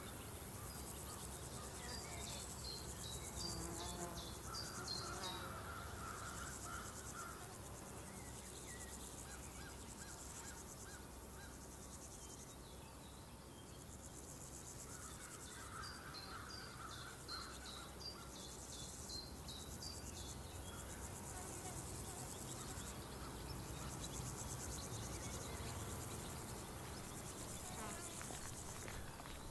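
Countryside ambience of insects buzzing and crickets chirring steadily. A run of short high chirps comes twice: a couple of seconds in, and again a little past the middle.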